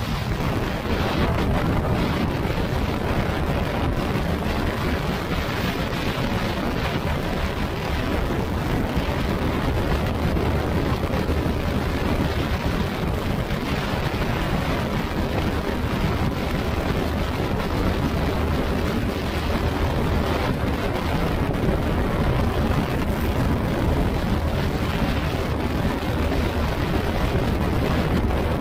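Yamaha NMAX scooter with an RS8 CVT setup running steadily under way, its single-cylinder engine mixed into heavy wind noise on the microphone.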